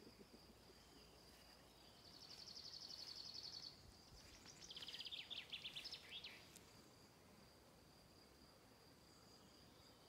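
Faint insect song in a summer meadow: a continuous high, thin buzz, with two louder rapidly pulsing trills about two seconds in and about five seconds in.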